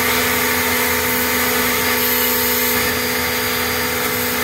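APR AP73 electric pressure washer running steadily, its motor humming under the hiss of the water jet as it blasts moss off a surface.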